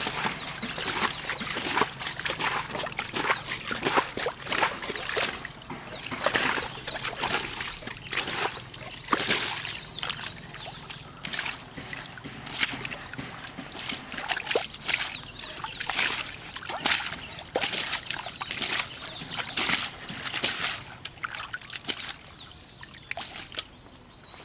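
Catfish thrashing in shallow muddy water: irregular splashing and sloshing that thins out near the end.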